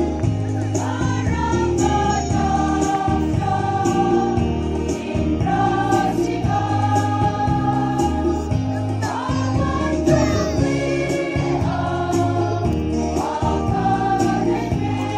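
A women's choir singing a hymn together, held notes with gliding phrases, over an instrumental backing with a stepping bass line and light regular ticks.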